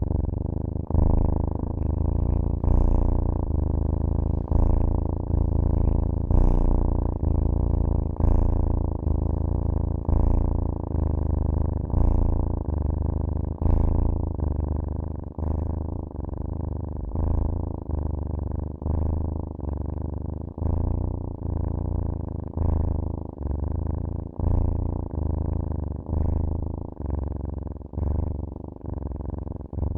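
Domestic cat purring close up: a steady low rumble that pulses with each breath in and out, about once a second, growing slightly softer in the second half.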